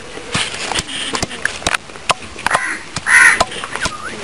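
Wooden pestle pounding green chillies, ginger and garlic in a clay mortar, about two dull knocks a second. A loud cawing bird call sounds about three seconds in.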